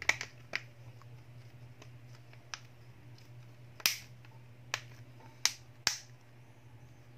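Plastic clips on the red frame of a Vivo Y11 phone snapping into place as fingers press the display assembly and housing together. Several sharp, irregularly spaced clicks, the loudest near the start and about four seconds in.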